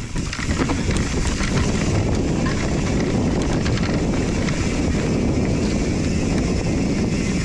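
Steady rumbling noise of an electric mountain bike climbing a steep dirt trail, mixed with wind on the microphone.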